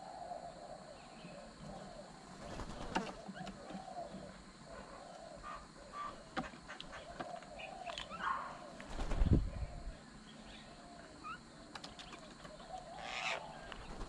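Mynas at a bird table: scattered sharp clicks of pecking and landing, a heavy low thump about nine seconds in, and a burst of wing flapping near the end as another bird flies in. Birds call repeatedly in the background.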